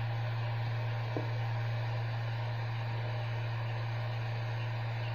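A steady low electrical hum over a constant hiss, with one faint click about a second in.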